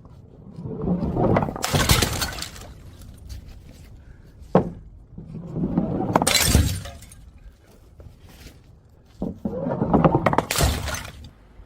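Glass bottles smashing on stairs: three rounds of clattering impacts, each ending in a shatter of glass, about four seconds apart, with a single sharp knock between the first two.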